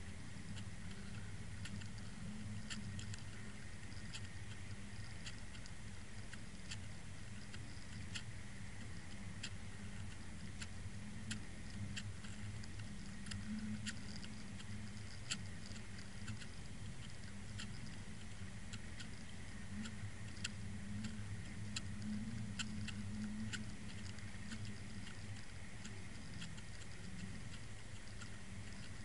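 Underwater sound from a Water Wolf camera towed through the water at about 2.5 knots: a steady low rumble with a constant thin high whine, and irregular sharp clicks about once a second.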